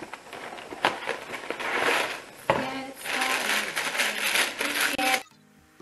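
Clear plastic bag of breakfast cereal being handled and opened, crinkling and rustling in several spells with sharp crackles. The sound cuts off abruptly near the end.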